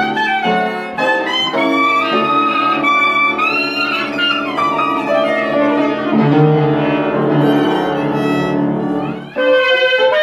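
Violin playing a Jewish melody with sliding notes over piano accompaniment. The phrase breaks off briefly about nine seconds in, then a new one begins.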